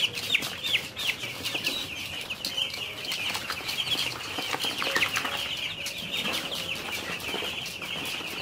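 Ten-day-old chicks peeping all at once, a steady stream of short, high, falling chirps. Scattered light taps come from the nipple drinkers being tapped to show the chicks where the water is.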